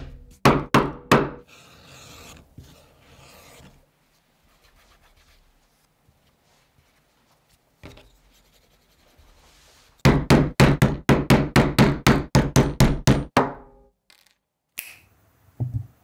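A mallet striking leather laid on a stone slab: three blows early on, then a quick, even run of about fifteen blows, some five a second, and a couple more knocks near the end.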